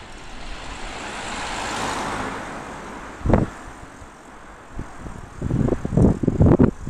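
A car passes going the other way, its tyre and engine noise swelling and then fading over the first three seconds. A single short thump comes about three seconds in. From about halfway on, wind buffets the bicycle camera's microphone in gusts.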